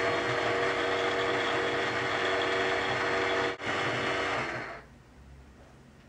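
Just Like Home toy microwave oven running its cooking cycle, a steady whirring hum, which fades out about five seconds in as its sped-up countdown runs out.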